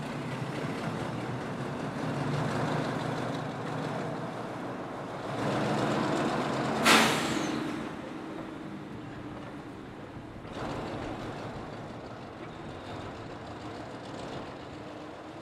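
A vehicle's engine running steadily, with one short, loud hiss of released air about seven seconds in.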